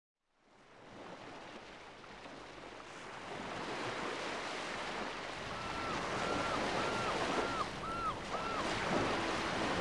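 Ocean waves breaking, fading in from silence and growing louder. About halfway through, a gull calls in a quick series of about six rising-and-falling calls.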